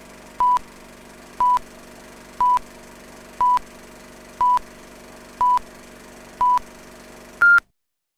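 Film countdown leader: a short steady beep once a second, seven times at the same pitch, then a last, higher-pitched beep, over a low steady hum. Everything cuts off just after the last beep.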